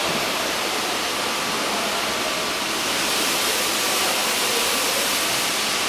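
Steady, even hiss of background noise with no distinct clicks or other events.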